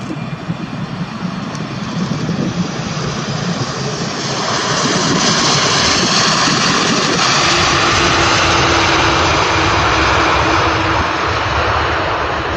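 Airbus A330 twin-jet airliner on its landing roll just after touchdown: a continuous jet-engine rush that grows louder about four seconds in as the aircraft passes close, then stays strong, with a faint steady hum underneath.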